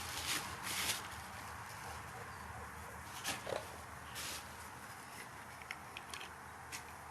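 A few brief scraping or rustling sounds and small clicks over a steady hiss with a low hum.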